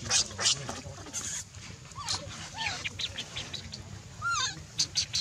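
Animal calls: a rapid run of short, high-pitched chirps and squeaks, with a few brief squeals that rise and fall in pitch, one about two seconds in and one just after four seconds.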